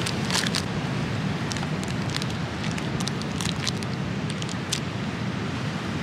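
Thin plastic snack wrapper crinkling with sharp crackles as a piece of crispy chocolate mille-feuille wafer is unwrapped and bitten into, over a steady low wind rumble on the microphone.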